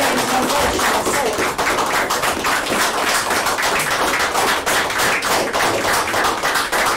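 A roomful of people applauding: dense, continuous clapping.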